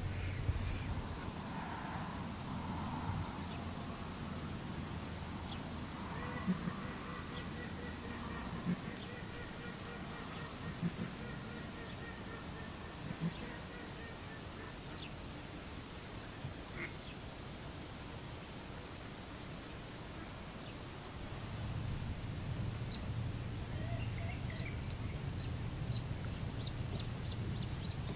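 Continuous high-pitched insect trill, cricket-like, over a low rumble of wind that grows louder about three quarters of the way through, with a few short high chips near the end.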